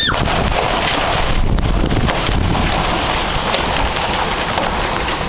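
Heavy rain and hail coming down hard in a steady downpour, with scattered sharp ticks of hailstones striking, and wind buffeting the microphone.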